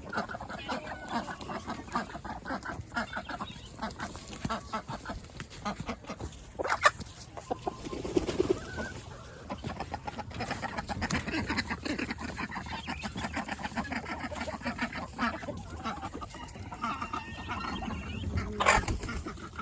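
Chickens clucking in short, repeated calls, with a few sharp knocks, one about seven seconds in.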